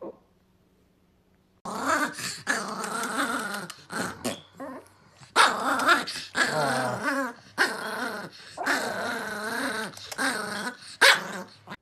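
Dogs growling and snarling in long, wavering bouts with short breaks, starting about a second and a half in.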